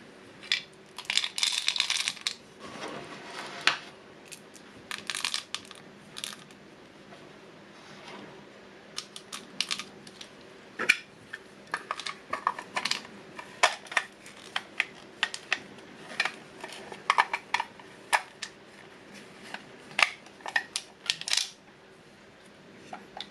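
Hard plastic parts of a toy candy dispenser clicking and rattling as they are handled and fitted together, with small hard-coated chocolates rattling against the clear plastic. The clicks are irregular, with a denser rattle about a second in.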